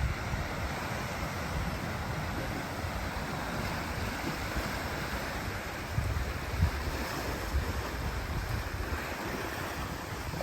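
Sea waves washing onto a beach, with wind buffeting the microphone in gusts and a few light knocks after the middle.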